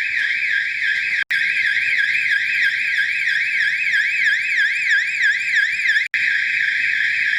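Electronic fire alarm sounder going off during a system test. It gives a loud, continuous warbling tone that sweeps up and down about three times a second, with two brief breaks.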